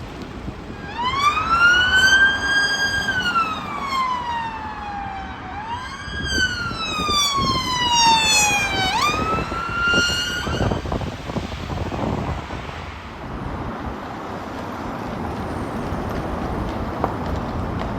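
An emergency vehicle siren wailing, its pitch rising and falling slowly three times before it cuts off about eleven seconds in. Road traffic noise carries on after it.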